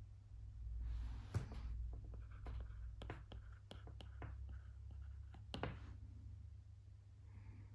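Quiet desk-work sounds of writing and clicking: a soft brushing stroke ending in a sharp tap, then a quick run of light clicks and taps, over a low steady hum.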